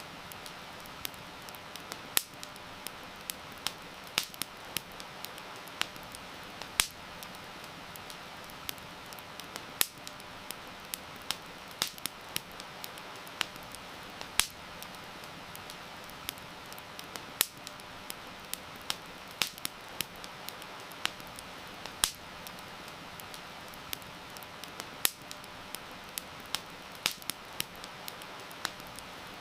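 Wood campfire crackling, with irregular sharp pops and snaps, over a steady hiss of heavy rain.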